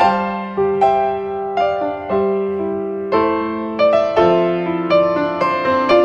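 Background piano music: single notes and chords struck at an unhurried pace, each ringing and fading before the next.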